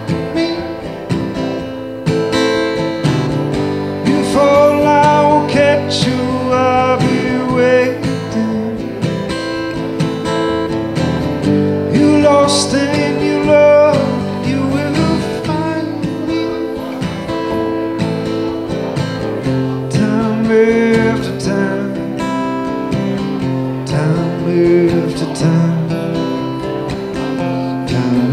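Steel-string acoustic guitar strummed steadily in an instrumental stretch of a solo song.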